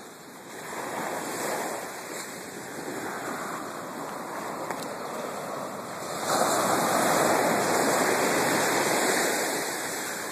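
Ocean surf washing onto the beach, a steady rushing noise that swells about six seconds in and eases off near the end.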